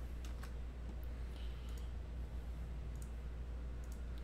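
About half a dozen scattered sharp clicks from a computer mouse and keyboard, over a steady low hum.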